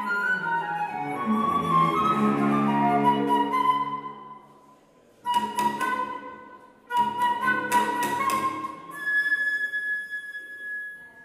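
Flute and cello playing contemporary chamber music. Both instruments sound together for about four seconds, then after a brief pause come two sudden loud entries, and the flute finishes on a long high held note that fades near the end.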